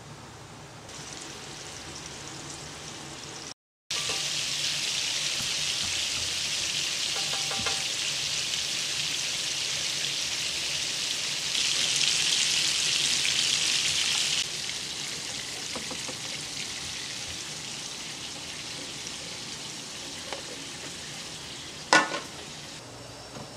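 Hamburg steak patties frying in a pan, a steady high sizzle that is briefly interrupted by a short gap, then louder, loudest for a few seconds in the middle and softer afterwards. A single sharp knock near the end.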